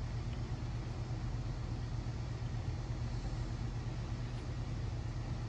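A steady low hum with a constant rumbling noise over it, even in level, with no distinct crunches standing out.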